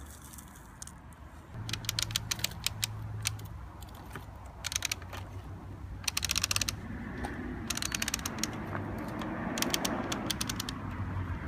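Bruder toy Liebherr crane's hand-cranked plastic winch being turned, ratcheting in about five quick runs of rapid clicks.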